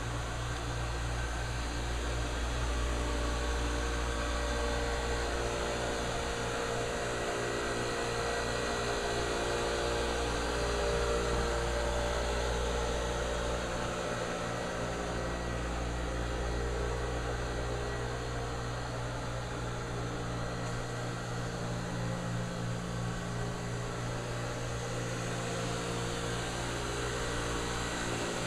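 Steady low machinery drone with several held tones and a constant hiss of running air or mechanical noise.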